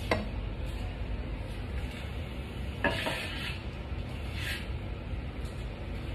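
Metal kitchenware handled on a counter and stove: a sharp click at the start, a louder clatter about three seconds in and a shorter scrape about a second and a half later. A steady low hum runs underneath.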